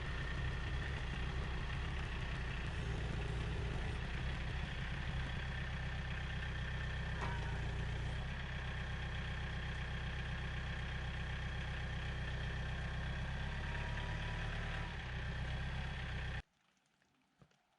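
An engine running steadily at idle, which cuts off suddenly near the end.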